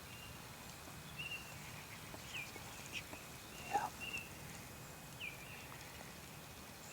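Songbirds chirping outdoors: short high notes that drop in pitch, repeated every second or so, with one louder upward-sweeping call about four seconds in.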